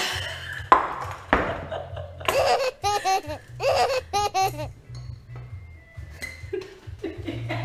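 A woman laughing in a couple of bursts of rapid, pulsing laughter, after two sharp clicks from handling the corkscrew and bottle.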